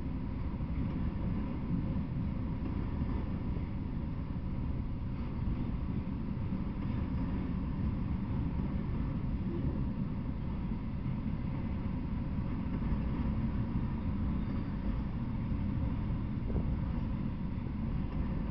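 Freight train of autorack cars rolling past, a steady low rumble of wheels on the rails.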